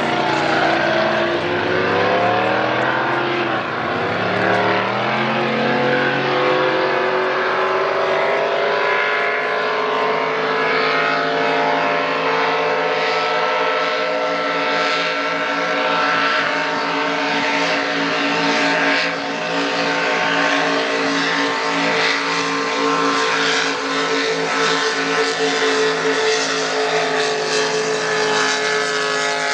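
Racing boats' inboard engines running flat out: a loud, steady drone whose pitch climbs over the first several seconds, then holds, and falls away as a boat passes near the end.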